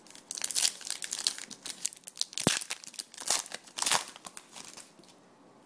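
Trading card pack wrapper being torn open and crinkled by hand: a run of crackling and crumpling for about four seconds, with a couple of sharper snaps, then it goes quiet near the end.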